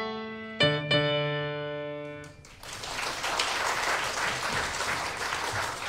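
Grand piano playing the last chords of a march: a final chord struck about half a second in rings and fades away. About two and a half seconds in, audience applause starts and goes on to the end.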